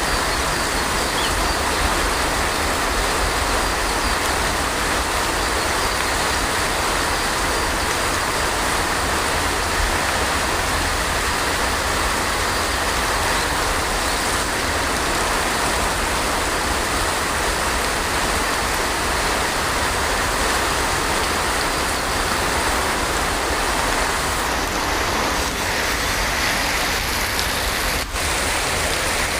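Heavy rain falling steadily: an even hiss with a low rumble underneath.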